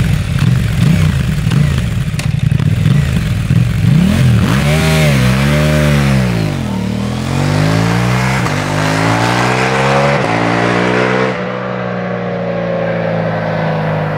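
KTM 790 Duke's parallel-twin engine through an Akrapovič exhaust: a low, steady running note, revved up and down twice about four seconds in, then accelerating with the pitch climbing through two or three upshifts. Near the end the sound goes duller and quieter as the bike moves off.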